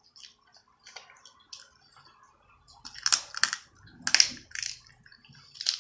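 Close-up eating sounds of snow crab being eaten: faint small clicks at first, then loud crackly bursts of chewing and mouth noise about three seconds in, again about four seconds in, and once more near the end.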